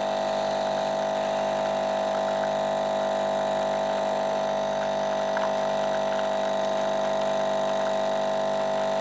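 Aldi capsule coffee machine's pump running with a steady hum as it pushes hot water through the used capsule on a large-cup cycle.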